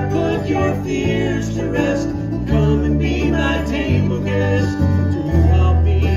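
Bluegrass gospel band playing live, with banjo, acoustic guitars and electric bass under a man singing lead.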